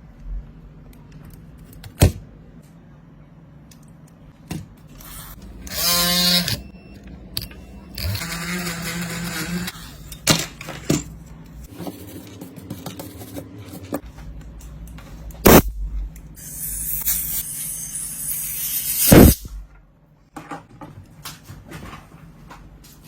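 Small repair tools and phone parts handled on a workbench: scattered sharp clicks and knocks, with a few stretches of scraping or hissing noise lasting one to three seconds each.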